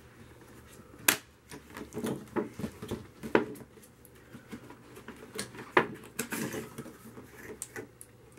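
Cardboard box being handled, turned over and opened by hand on a tabletop: light scrapes and rustles of cardboard, with sharp knocks about a second in, at about three and a half seconds, and loudest near six seconds.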